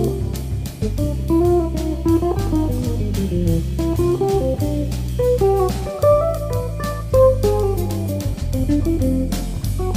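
Background instrumental music: a plucked guitar melody over a bass line and a steady beat.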